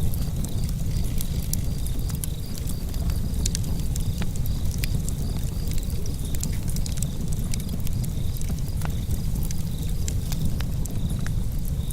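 Wood fire burning in a fireplace: a steady low rumble of flames with frequent sharp crackles and pops from the burning wood.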